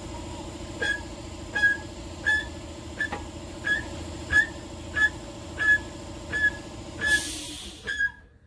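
A jack squeaking on each pump stroke as it raises the tractor, a short squeak roughly every 0.7 s, over a steady mechanical hum. Near the end comes a brief hiss, then the hum stops abruptly.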